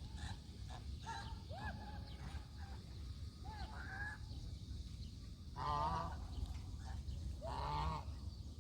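Domestic geese calling: a few short, softer calls in the first half, then two loud honks about two seconds apart.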